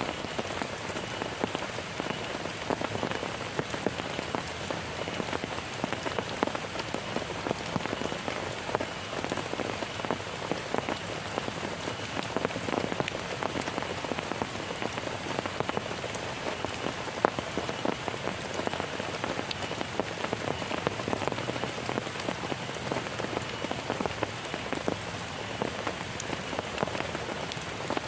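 Heavy rain falling steadily, a dense hiss of many individual drops striking a surface.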